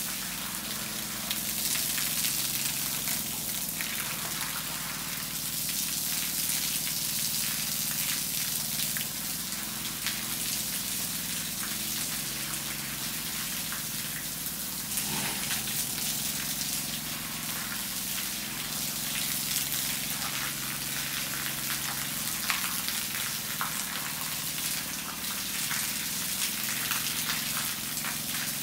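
A jet of water splashing onto a wet concrete floor, a steady hiss with patter, over a low steady hum.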